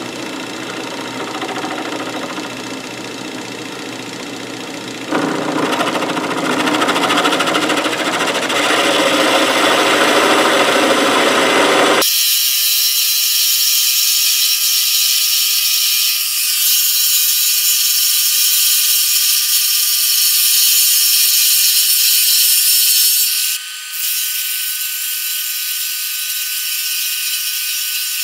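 Atlas 618 belt-driven bench lathe running, taking a turning cut along a steel test piece held in a collet: a test cut to check the lathe's bed level. The machining noise grows louder about five seconds in; about twelve seconds in the sound abruptly turns thin and hissy with a steady high whine, its low end gone.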